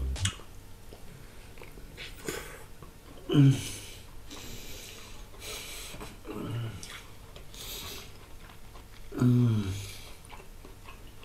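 A man eating a mouthful of stuffed tomato: three short hums of enjoyment, each falling in pitch, with chewing and audible breaths between them.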